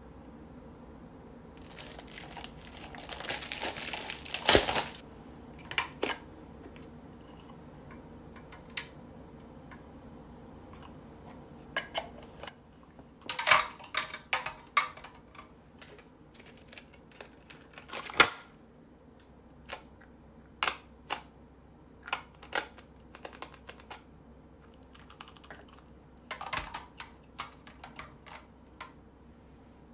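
Hard clear polystyrene accessory stand and plastic packaging handled on a tabletop. About two seconds in, plastic packaging crinkles for a few seconds. After that, scattered light clicks and taps of hard plastic against plastic as items are set into the stand's compartments.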